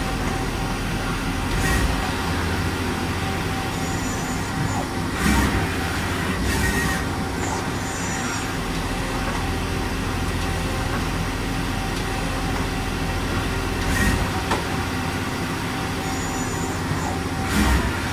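Steady hum of powered industrial machinery, with a handful of short knocks and clunks spread through, the sharpest about five seconds in.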